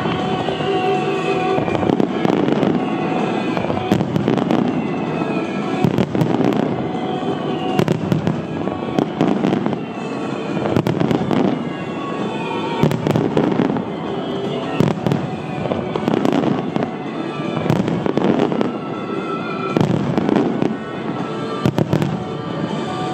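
Fireworks set to music: aerial shells and fountains going off in repeated sharp bangs and crackling, over music with a falling figure that repeats about every two seconds.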